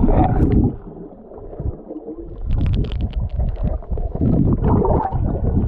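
Water gurgling and rumbling around a camera held underwater, with a burst of sharp crackling clicks about two and a half seconds in.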